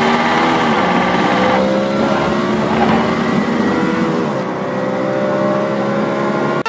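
Car engine revving sound. Its pitch dips about half a second in, then climbs in two long rising glides, as if accelerating.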